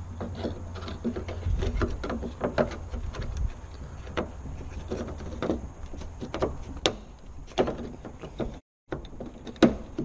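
Irregular clicks, taps and knocks of metal and plastic parts being handled and fitted inside a car's rear door panel while the outside door handle and its linkage are installed, the sharpest knock near the end.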